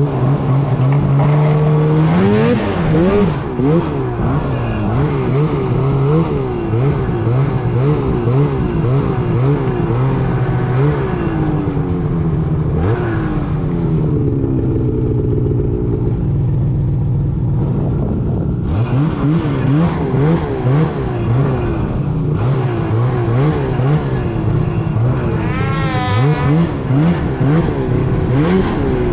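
Snowmobile engine under way, its pitch rising and falling again and again as the throttle is worked, with a sharp climb to a high rev near the end.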